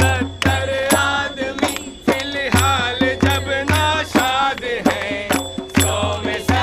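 A crowd of protesters sings a chant in unison over a hand drum struck in a steady beat of about two strokes a second, with hand clapping.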